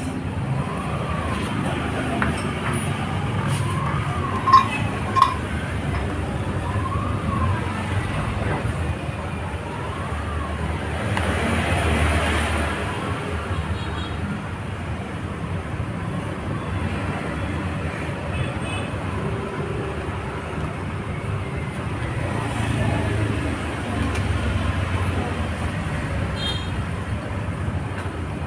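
Steady street traffic noise, with a siren wailing up and down over the first ten seconds or so. Two sharp clicks come about five seconds in, and the noise swells about twelve seconds in.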